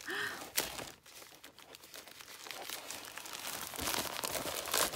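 Plastic poly mailer bag crinkling and rustling as hands pull and tear at it to get it open, with a sharp click about half a second in and the crinkling growing louder near the end.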